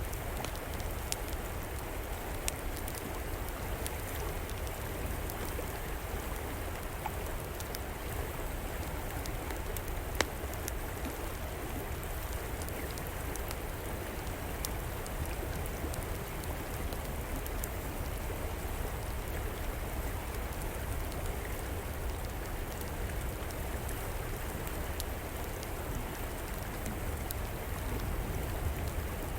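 Steady rushing of a flowing river, with a wood fire crackling over it in scattered sharp pops, one louder pop about ten seconds in.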